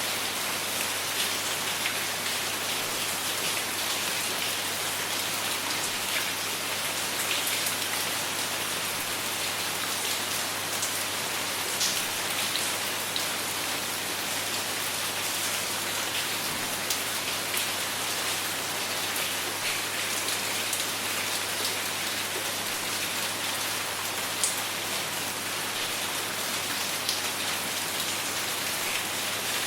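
Steady rainfall, with a dense hiss of drops and scattered sharper individual drop ticks here and there.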